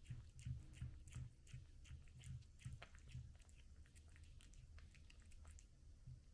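A cat chewing and eating its food: faint, rhythmic chewing clicks and soft bites, about two or three a second, growing weaker after about halfway.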